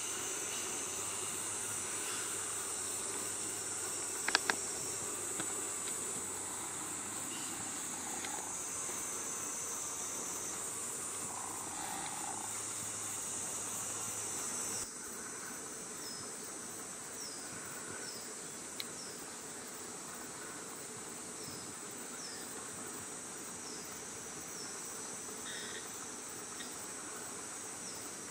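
Steady high-pitched chorus of summer insects, a little quieter after about halfway. Short falling chirps repeat every second or so in the second half. A couple of sharp clicks come about four seconds in.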